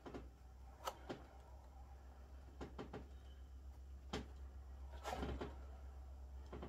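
Canvas and the cardboard board under it being shifted and tilted by hand on a paper-covered table: scattered light knocks and bumps, with a denser cluster about five seconds in, over a low steady hum.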